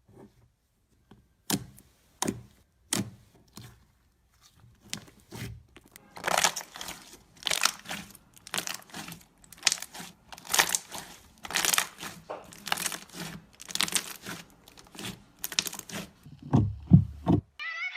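Hands playing with slime: a few separate sticky clicks, then from about six seconds in a steady run of crackly squishes, roughly one or two a second. Near the end comes a louder, deeper squish.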